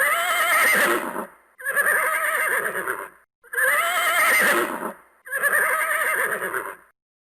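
Horse neighing: four whinnies in a row, each about a second and a half long with a quavering, shaking pitch, separated by short pauses.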